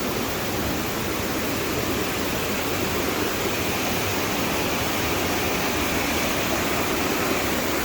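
Waterfall rushing steadily: an even, unbroken wash of water noise.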